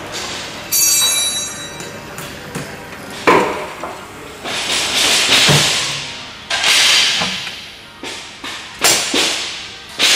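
Automatic stretch-film pallet wrapper running: noisy whooshes that swell and fade every second or two as the film carriage works around the load, with sharp mechanical clunks, the loudest about three seconds in.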